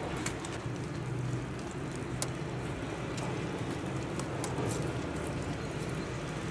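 Steady low rumble of distant city traffic, with a few faint scattered clicks.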